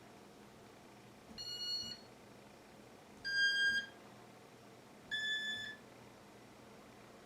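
Three short electronic beeps, each about half a second long and a little under two seconds apart, each slightly higher in pitch than the one before.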